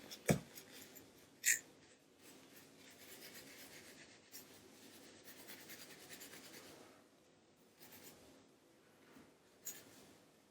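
A sponge scrubbing PS4 controller buttons and triggers in a bucket of soapy water: a faint, fast rasping rub for about four seconds in the middle, with a few light knocks near the start and one near the end.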